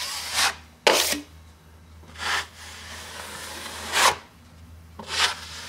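Drywall knife scraping and spreading quick-setting joint compound over a wall patch in about five strokes, the longest sweep lasting over a second near the middle.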